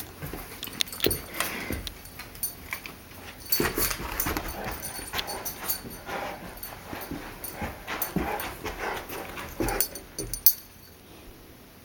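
A dog whining and whimpering, with scattered clicks and knocks; the sounds stop abruptly about ten and a half seconds in.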